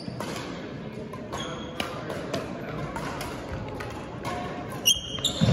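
Badminton rally: several sharp hits of rackets on a shuttlecock and sneakers squeaking on the gym floor, over background chatter.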